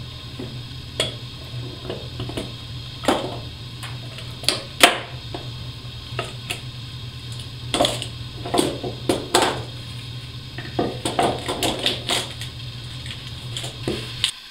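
Steel-barred one-handed bar clamps being released and taken off a glued-up wooden workpiece, making irregular metallic clicks and clatter in bunches as triggers are squeezed and clamps are set down on a wooden workbench. A steady low hum sits under it all and stops near the end.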